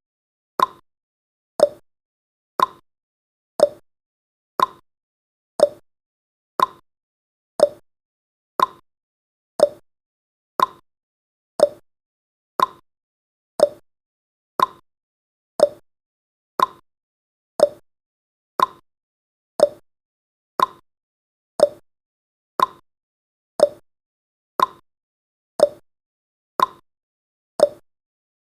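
Countdown timer's clock-tick sound effect: one short sharp tick every second, evenly spaced, with silence between ticks.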